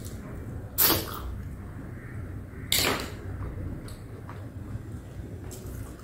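Close-miked eating of crab and prawn: two short, loud mouth noises about two seconds apart as the meat goes into the mouth, then quieter chewing smacks and clicks.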